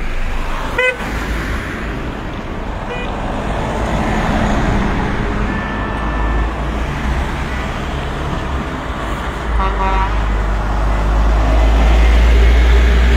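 Road traffic noise heard from a car in a moving convoy, with a low engine rumble that grows louder from about ten seconds in as lorries pass close by. Short horn toots sound about a second in, again at about three seconds, and as a quick series of beeps around ten seconds.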